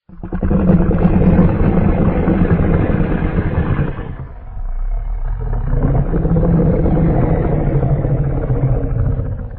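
A custom-made Godzilla roar: a long, low, rough monster roar in two parts, dipping briefly about four seconds in, then cutting off at the end.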